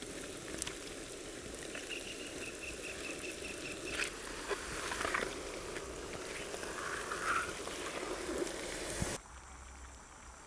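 Steady low hiss with a few sharp crackles from the wood fire and the pot of freshly added chicken, plus a short run of rapid high chirps, about five a second, from about two seconds in to four. The sound drops off abruptly near the end.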